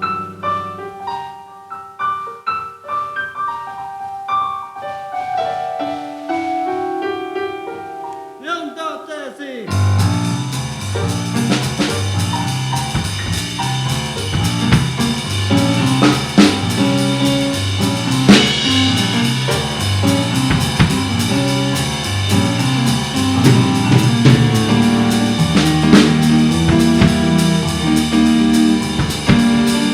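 Live rock band playing an instrumental passage: a solo piano-sounding keyboard plays for about the first third, ending in a fast run of notes, then drums, bass and the rest of the band come in suddenly and play on.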